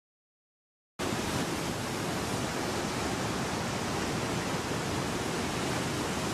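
About a second of silence, then a steady, even rushing hiss that starts abruptly and holds without change.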